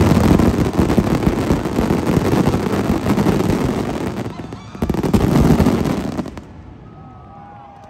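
Fireworks barrage: dense rapid bangs and crackling that ease briefly about four seconds in, surge again, then stop abruptly about six seconds in. After that the crowd starts whooping and cheering.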